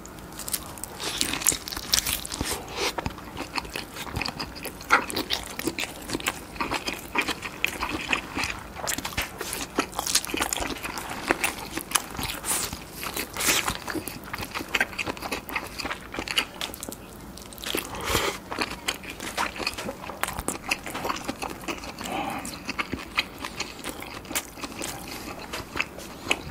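Close-miked eating of grilled lobster meat under melted raclette cheese: biting and chewing as a dense run of small mouth clicks, with a brief lull about two-thirds through.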